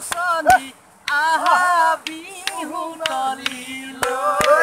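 Men singing an Assamese Bihu folk song without instruments, with sharp claps marking the beat every second or so.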